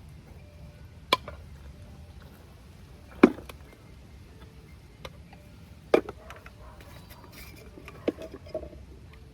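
Scattered sharp knocks and clicks of plumbing tools and pipe fittings being handled while a pipe connection is worked on, about half a dozen in all, the loudest a little past three seconds in.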